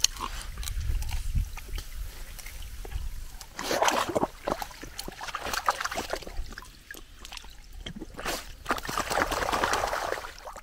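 Lake water splashing and sloshing as a dog wades in the shallows, with scattered sharp clicks and two louder splashy stretches, about four seconds in and near the end.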